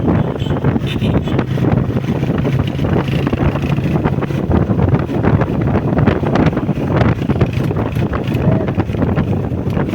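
Honda CG125's single-cylinder four-stroke engine running on the move, with wind buffeting the microphone. The steady engine hum is plain at first and blurs into rougher rumble about halfway.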